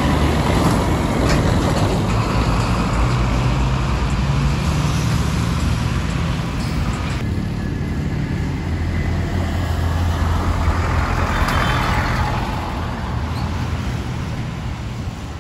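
Diesel bus engines running hard as buses pull away and pass close by, a loud low engine drone over road noise. The sound changes abruptly about seven seconds in, where one roadside recording gives way to another.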